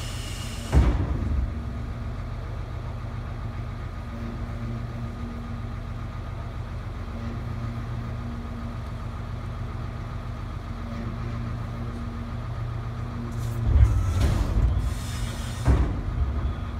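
1993 DAF garbage truck's diesel engine idling steadily. Brief louder bursts of hiss with low thumps break in about a second in and again twice near the end.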